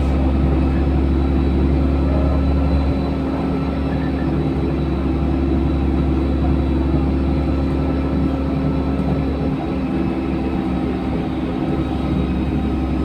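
LiAZ-5292.67 city bus running along the road, heard from inside the cabin: a steady drone of engine and drivetrain with road noise, its deep rumble easing about three seconds in.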